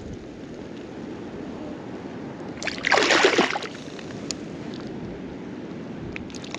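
A hooked fish splashing in shallow water, with one loud splash about three seconds in over a steady wash of water.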